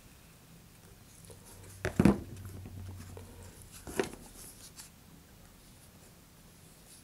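A plastic glue bottle and a paper motor-mount tube handled on a cutting mat: a double knock about two seconds in, as the bottle is set down, and a lighter knock about four seconds in, with soft handling rustle between.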